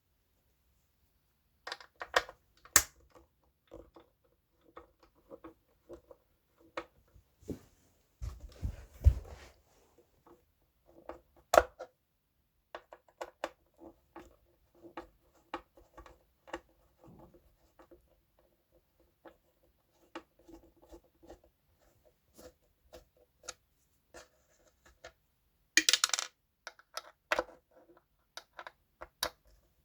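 Scattered clicks, taps and scrapes of tools and plastic parts being handled while a subwoofer is taken apart, with a longer scraping rustle about eight seconds in and again a few seconds before the end.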